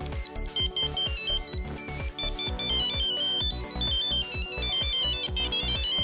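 Ericsson R600 mobile phone playing its built-in ringtone melodies through its small speaker: quick runs of high beeping notes. The tune changes partway through as the ringtone list is scrolled.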